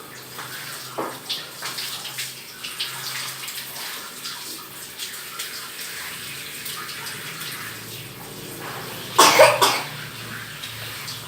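Water splashing and trickling as a child's hair is washed and rinsed, with small scattered splashes. About nine seconds in comes a brief loud burst, the loudest sound in the stretch.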